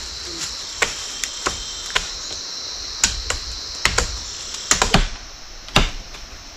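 Irregular sharp snaps and cracks of leafy twigs being broken off by hand, over a steady high drone of insects. About five seconds in the insect drone drops away and a heavier chopping stroke of a blade into wood follows.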